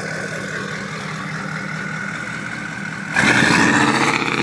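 Diesel dually pickup engine idling steadily through its new exhaust. About three seconds in it is revved hard, much louder, as it blows black smoke.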